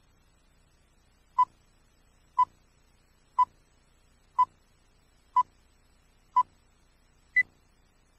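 Countdown leader beeps: seven short beeps one second apart, the last one higher in pitch.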